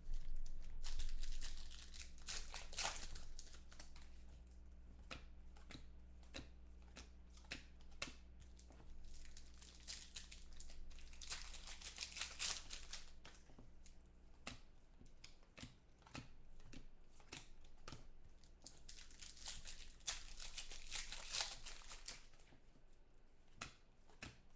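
Foil trading-card pack wrappers being torn open and crinkled in three longer bouts, with short clicks and flicks from cards being handled between them. A faint low hum runs underneath and stops near the end.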